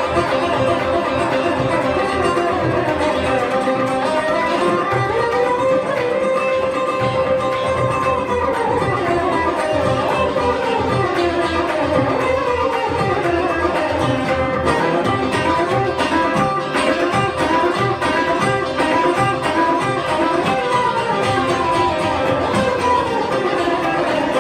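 Amplified Saraswati veena playing fast Carnatic phrases full of sliding pitch bends, over a steady percussion accompaniment.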